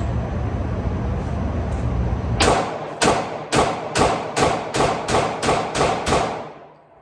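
A rapid string of about ten pistol shots from a Glock 23, fired at roughly three a second, starting a little over two seconds in. Outdoor wind rumble comes before them.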